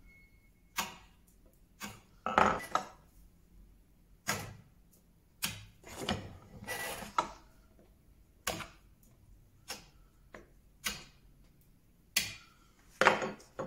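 Wood chisel knocking the corners off a small piece of wood, a series of short sharp knocks and cracks about once a second, some in quick pairs.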